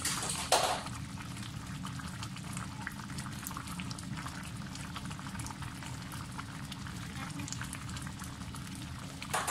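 Pot of chicken sotanghon broth simmering on the stove: a steady bubbling full of small pops, with one brief louder noise about half a second in.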